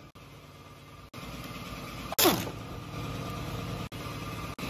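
Pneumatic impact wrench, on the driveshaft flange bolts, blipped briefly about two seconds in, its whine falling quickly as the air motor winds down. A lower steady mechanical hum runs underneath.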